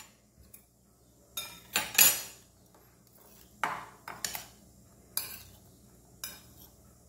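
Metal spoon clinking and scraping against a glass bowl while tossing sliced carrot and onion salad: irregular clinks, the loudest about two seconds in.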